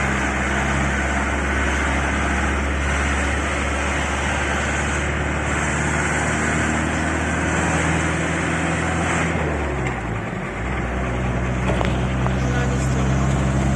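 Motorhome engine and road noise while driving, a steady running hum whose note shifts about ten seconds in.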